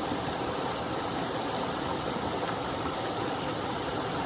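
Small but powerful waterfall pouring steadily: a continuous, even rush of falling water.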